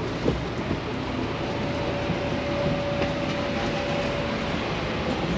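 Marcopolo Paradiso G7 1050 coach stopped at its terminus with its engine running: a steady mechanical noise, with a faint steady whine for a few seconds in the middle.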